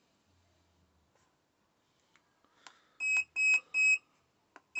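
Autel AutoLink AL539 battery tester giving short, high key-press beeps as its arrow key steps the cold-cranking-amp rating down. After a near-quiet start there are three quick beeps a little after three seconds in and another right at the end, with a few soft clicks among them.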